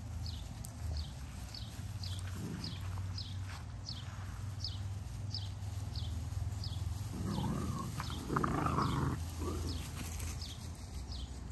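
XL pit bull puppies play-fighting, with a loud burst of growling and scuffling about seven seconds in. A steady low hum and a high chirp repeating about twice a second run underneath.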